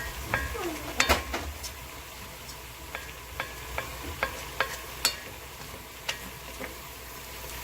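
Spoon stirring abalone porridge ingredients in a pot over a sizzle, the utensil knocking and scraping against the pot. The loudest knocks come about a second in, then a run of regular taps, two or three a second.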